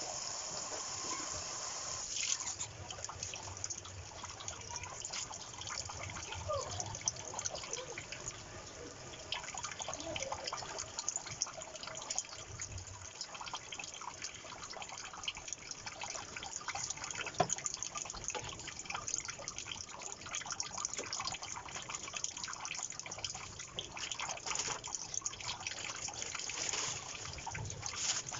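Water running and trickling, like a kitchen tap running into a sink, with many small clicks and drips throughout.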